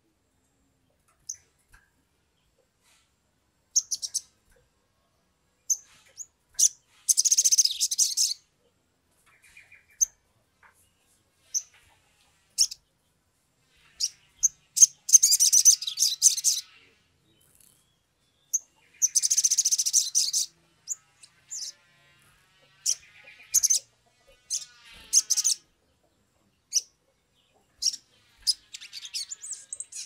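Male olive-backed sunbird singing: scattered high, thin chirps broken by several dense bursts of rapid twittering song lasting one to two seconds each.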